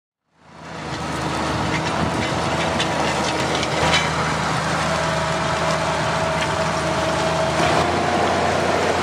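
Deutz-Fahr 6210 tractor's six-cylinder diesel engine running steadily under load while pulling a disc harrow through stubble, with scattered knocks and clatter from the harrow. The sound fades in over the first second, and the engine note steps slightly higher near the end as the tractor comes close.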